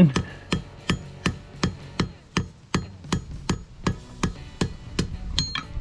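Blacksmith's hand hammer striking hot steel rod in a steady rhythm, about three blows a second, drawing out and thinning a freshly forge-welded joint. A brief metallic ring near the end.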